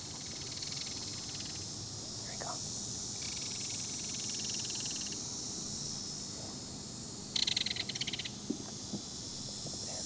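Outdoor chorus of insects: a steady high-pitched buzz, with stretches of rapid trilling that start and stop. The loudest trill comes shortly before the end and lasts about a second.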